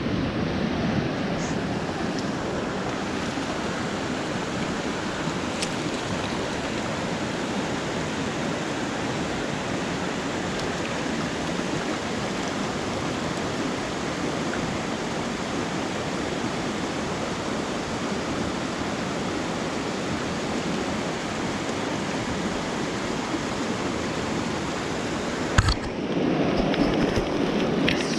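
Small creek's water running, a steady rush. Near the end there is one sharp click, after which the water sounds fuller and deeper.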